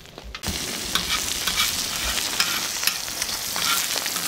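Eggs frying in oil on a large round steel griddle: a steady sizzle with scattered small pops, starting suddenly about half a second in.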